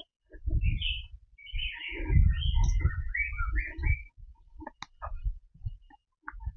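Forest birds chirping and calling in many short notes, over irregular low thuds and rumble on the microphone, with one sharp click a little before five seconds in.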